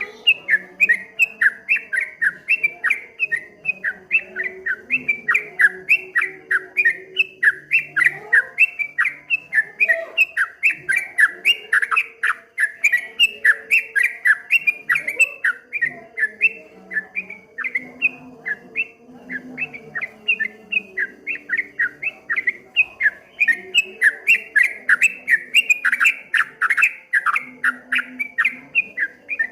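Yellow-vented bulbul (trucukan) singing a long, unbroken run of short, loud chirping notes, about two to three a second, in the rapid rolling 'ropel' style.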